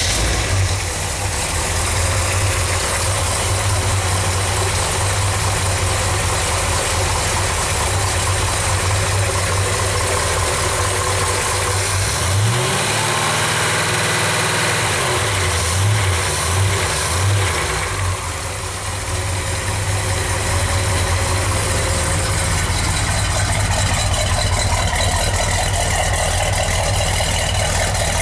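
1970 Corvette's 454 big-block V8 idling steadily just after starting. About halfway through it is revved once, the pitch rising and falling over a couple of seconds. Three quick throttle blips follow before it settles back to idle.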